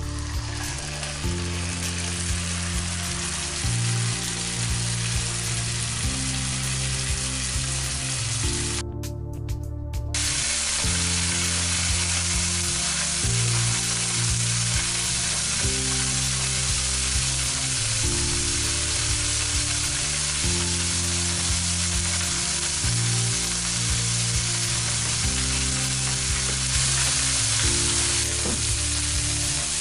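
Beef shoulder searing in hot oil in a frying pan: a steady, loud sizzle that starts as the meat goes in and cuts out briefly about nine seconds in. Background music plays underneath.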